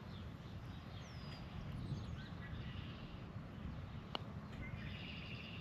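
A putter strikes a golf ball once: a single sharp click about four seconds in, over a steady low outdoor rumble with birds chirping faintly.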